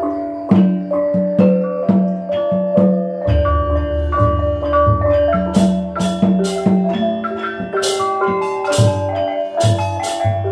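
Osing gamelan from Banyuwangi playing: rows of bronze kettle gongs struck in a quick ringing melody, with kendang drum strokes beneath. A deep hum swells about a third of the way in, and sharp, bright strikes join the pattern from about halfway.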